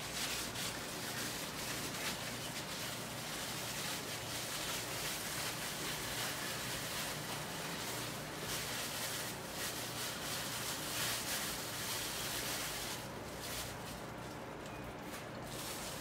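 Thin plastic bag crinkling and rustling as a marinated whole young chicken is worked out of it into a ceramic baking dish. The crinkling eases off about three seconds before the end.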